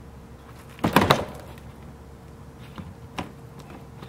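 Plastic air dam being pulled off the bottom of a Chevrolet Silverado's front bumper by hand: a quick cluster of sharp plastic knocks and clacks about a second in as it works loose, and one lighter knock a little after three seconds.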